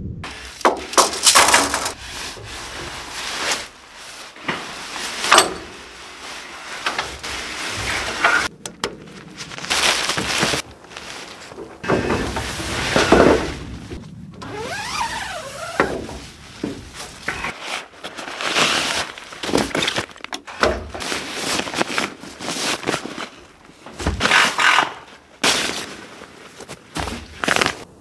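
Camping gear being handled while a dome tent is pitched: nylon tent fabric rustling and scraping in irregular bursts, with sharp knocks and clicks from tent poles and stakes and a short squeak about halfway through.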